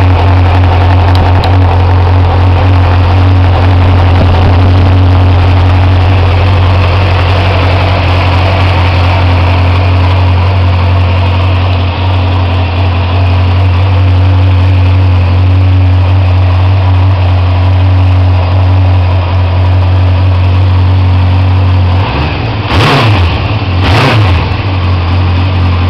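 Kawasaki GPX600R's inline-four engine idling steadily from cold, started without the choke, then revved briefly twice near the end.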